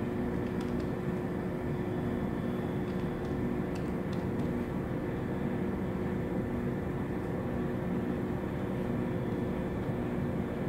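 Steady machinery drone with a low rumble and several steady humming tones running under the scene, with a few faint clicks of calculator keys being pressed.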